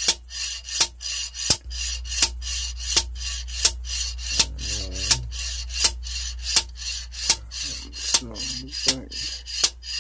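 Ratchet wrench being worked back and forth on a lifter puller, a sharp click about every three quarters of a second with a rasp from the ratchet between strokes, as the puller draws a hydraulic lifter up out of its bore in a GM small-block V8.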